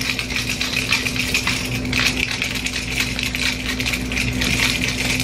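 Plastic blender bottle with a wire whisk ball and ice cubes being shaken, a fast continuous rattle.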